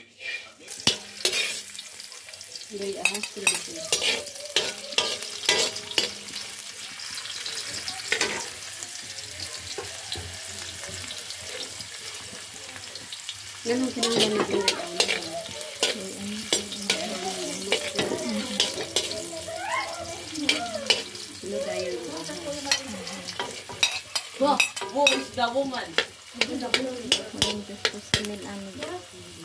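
Sliced garlic sizzling in hot oil in a metal wok, with a metal spatula scraping and clicking against the pan as it is stirred. The sizzle gets louder about halfway through.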